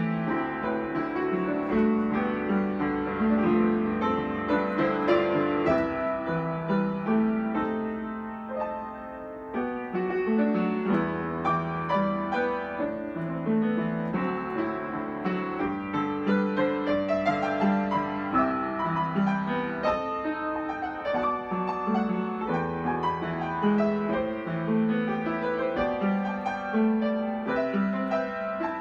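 Solo piano playing a gentle, flowing melody over a low accompaniment. It briefly grows softer about eight seconds in, then picks up again.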